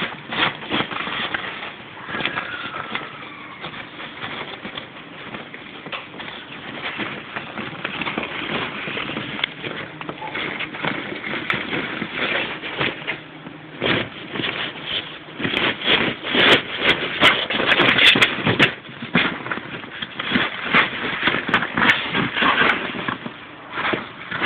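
A small terrier biting and dragging an inflatable vinyl toy: an irregular run of crackling, rubbing and scuffing noises from the plastic, thickest and loudest about two-thirds of the way through.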